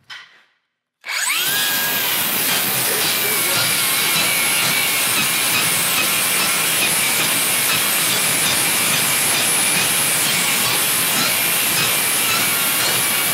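Cordless circular saw with a Crescent NailSlicer carbide blade spinning up about a second in with a quick rising whine, then cutting steadily and loudly through a board studded with nails.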